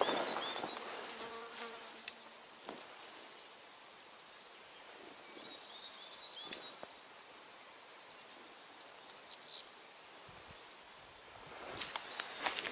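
High, rapid trilling call of a small wild creature, running for several seconds and ending in a few separate high chirps. A brief rustle of movement comes at the start and again near the end.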